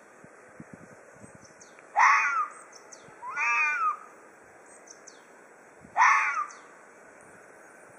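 Ezo red fox giving threat calls: two short, harsh screeching calls about four seconds apart, each sliding down in pitch. A longer, wavering call comes between them about three seconds in.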